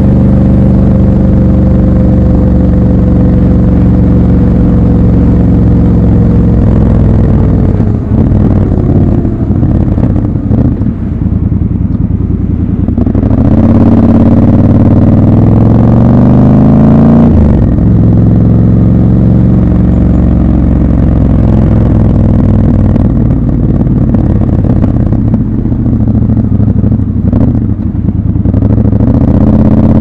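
Triumph Scrambler 1200 XC's 1200 cc parallel-twin engine from the rider's seat, running steadily. Its pitch sinks slowly through the first several seconds as the bike slows, then climbs for a few seconds under acceleration. It drops suddenly at an upshift just past halfway and runs steadily again.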